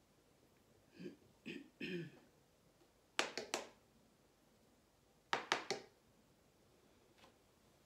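Three short, low vocal sounds from the painter, then two quick runs of three or four sharp taps about two seconds apart as a small spreading tool works across wet paint on synthetic paper.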